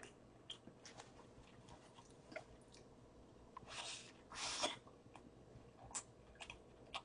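Faint close-up eating sounds: soft chewing and wet mouth clicks on a burger, with a louder bite and crunch in two quick noisy bursts about four seconds in.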